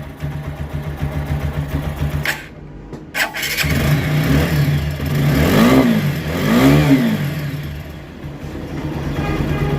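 TVS Apache RTR 160 4V single-cylinder motorcycle engine idling. It is blipped twice in quick succession about halfway through, the pitch rising and falling each time, then settles back to idle. A couple of sharp clicks and a brief dip in level come just before the revs.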